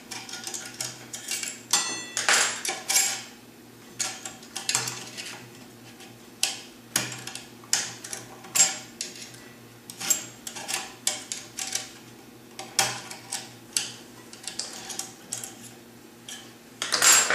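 A steel pick tool scraping and clicking against the metal parts of a ZF 5HP19 automatic-transmission clutch drum as small retaining pieces are picked out. There are irregular sharp metallic clicks and taps, one with a brief ring about two seconds in.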